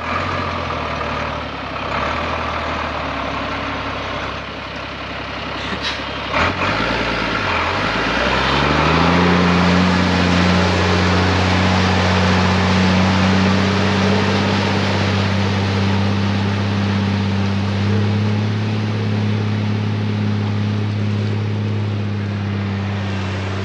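A 1983 Mercedes Unimog U1700L truck's six-cylinder diesel engine pulling steadily as the truck drives through a shallow creek, with water hissing and splashing around its tyres. About eight seconds in, the engine note shifts and settles into a steady drone.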